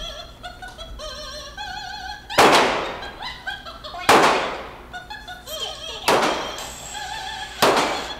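Four pistol shots about one and a half to two seconds apart, each ringing out in the reverberant space of an indoor shooting range, over music with an operatic singing voice.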